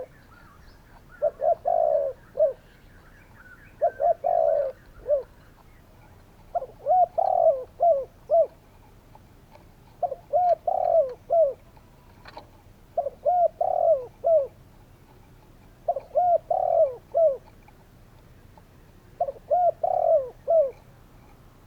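Spotted dove cooing, repeating its phrase of several short coos about every three seconds. Each phrase has a longer coo in the middle.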